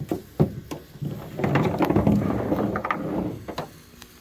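A rope cargo net with a plastic tensioner and metal snap hooks being picked up and handled: a few sharp clicks, then about two seconds of rattling and rustling as the hardware and rope knock together.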